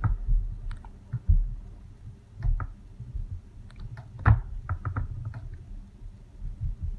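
Rubber spatula stirring thick, mashed-potato-stage hot-process soap in a crock pot: scattered clicks and knocks as it scrapes and taps the pot, with a louder thump about a second in and another, the loudest, just past four seconds in.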